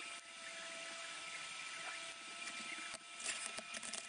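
Steady hiss with a thin high whine from a TIG welding setup on stainless steel, then several light metal clicks and clinks near the end as the welded plates and hinge are handled.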